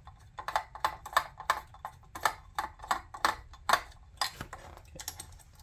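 Hand screwdriver working fasteners out of the Philips IntelliVue MP50 patient monitor's magnesium chassis: a series of sharp metallic clicks and ticks, about three a second.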